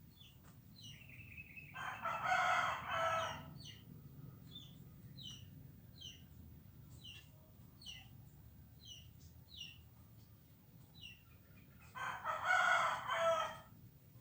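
A rooster crowing twice, once about two seconds in and again near the end, each crow lasting under two seconds. Under it, short high chirps of swiftlets repeat about twice a second throughout.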